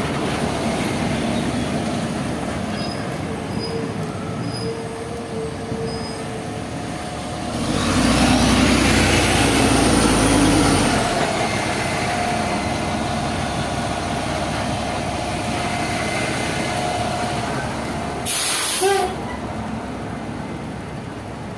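City street traffic heard beside a row of large buses, with a loud engine swell about a third of the way in. Near the end comes a short, sharp hiss of air from a bus's air brake.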